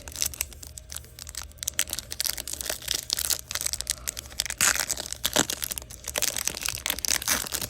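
A Bowman University Chrome football hobby pack being ripped open, its foil wrapper tearing and crinkling in a dense run of crackles and rustles.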